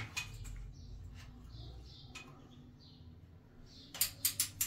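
Hands working a chrome shower riser rail and its sliding holder: about four sharp clicks in quick succession near the end, with faint high chirps before them.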